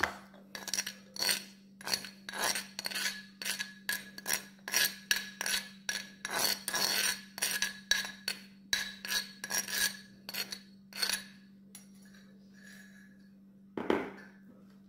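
Metal spoon scraping coarsely ground sweet corn off a stone mortar (cobek) into a bowl: quick repeated rasping strokes, about two or three a second, that stop roughly twelve seconds in. A single knock follows near the end.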